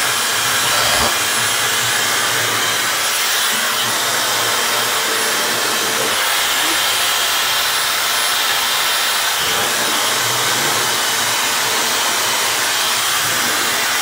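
Dyson Supersonic hair dryer running steadily, blowing on hair, with a faint high-pitched whine over the rush of air.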